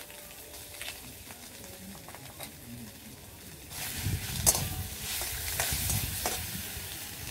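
Onion paste frying in a metal karai, stirred with a metal spatula: a faint sizzle with light scrapes that grows louder about halfway through, with several sharp scrapes of the spatula on the pan.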